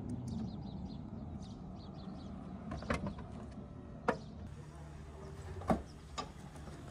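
Porsche Taycan boot lids being worked: four short, sharp clicks and knocks of the lid and its latch, spread over a few seconds, over a steady low rumble.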